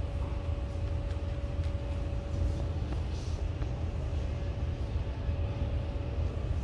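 Steady low rumble of shop background noise with a faint constant hum and a few faint clicks.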